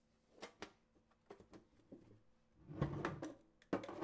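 Quiet handling of a metal recipe tin and a paper recipe card: a few light clicks, a rustling clatter about three seconds in, and a sharper knock near the end.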